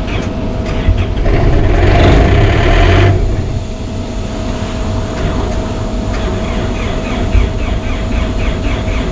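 Towable air compressor's engine running steadily, with a louder rushing surge from about one and a half to three seconds in, then a quick regular ticking of about three a second over the steady run.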